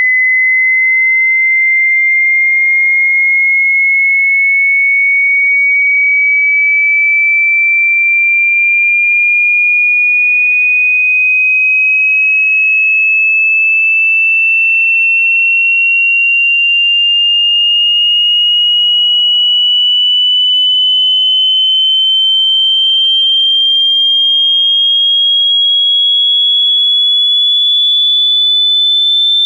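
A pure sine test tone, high-pitched and steady in loudness, gliding slowly and evenly upward in pitch: a hearing-test frequency sweep.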